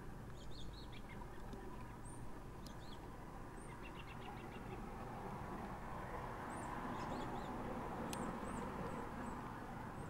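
Birds chirping in short, high calls and brief trills scattered throughout, over a steady background hum of traffic. There are a couple of sharp clicks, one near the middle and one near the end.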